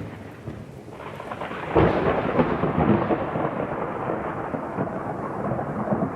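Thunderstorm: rain hiss with a sudden loud thunderclap about two seconds in that rolls on as crackling rumble, then cuts off abruptly at the end.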